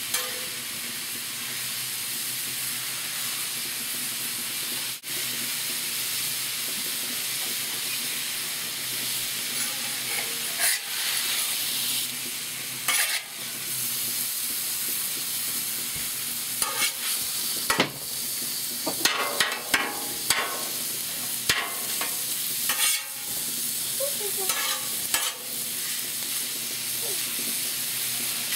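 Sliced chicken sizzling steadily on a hot, oiled steel griddle top of a Blackstone griddle. A metal spatula scrapes and clacks against the steel as the chicken is turned and broken up, the strokes coming thick and fast in the second half.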